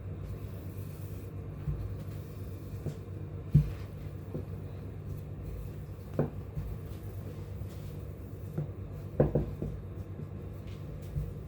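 Rolling pin working shortbread dough on a floured board: quiet rubbing with a few short knocks, a quick double knock about nine seconds in.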